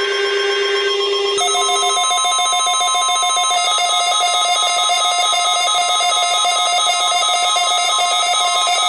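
NOAA Weather Radio warning alarm test: a loud, steady electronic alarm tone made of several layered pitches, with the set of tones changing about a second and a half in.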